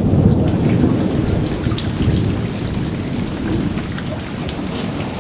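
Heavy rain falling on surfaces, with a deep rumble of thunder that starts sharply just before and slowly fades through the rain.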